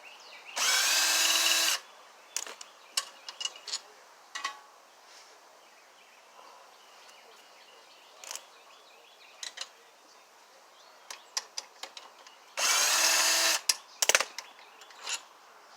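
Power drill spinning out the bolts that fasten a pressure washer pump to its engine, in two runs of about a second each: one just after the start and one about 13 seconds in. Short clicks and knocks of tools and bolts come in between.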